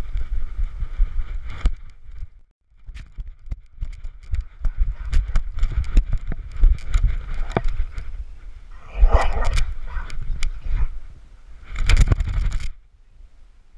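Handling noise from a GoPro on a running dog's harness: rumbling wind on the microphone with scraping and knocking as fur and straps rub against the camera housing. It stops briefly once, comes back in louder bursts, and drops away near the end.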